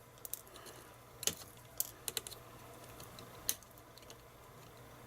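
Scattered light clicks and taps, irregular and quiet, from small hard parts being handled on the bench.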